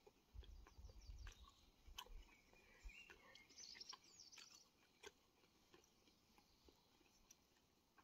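Near silence: a few faint soft clicks and rustles, with a faint bird chirping briefly about three and a half seconds in.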